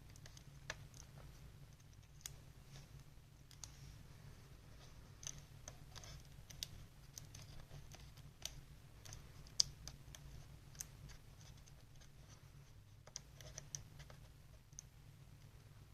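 Faint, irregular light clicks and taps of fingers handling small parts and tape inside an opened ThinkPad laptop while the fan's wires are being secured, a click or two a second with one sharper tap about halfway through, over a low steady hum.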